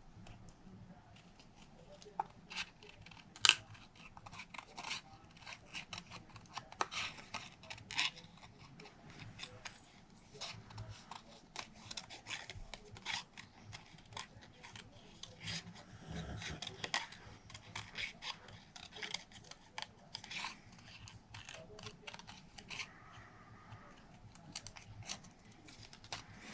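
Small scissors fussy cutting a stamped image out of paper: an irregular run of short snips and clicks, one sharper snip a few seconds in.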